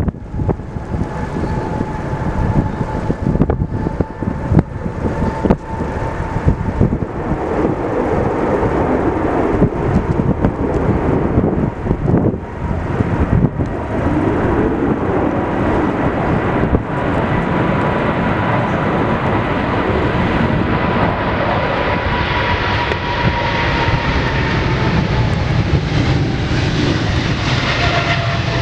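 Boeing 777 twin-jet at takeoff power during its takeoff roll and lift-off: steady jet engine noise with a whine that dips slightly in pitch near the end, growing harsher and fuller as the aircraft passes. Gusts of wind hit the microphone through the first half.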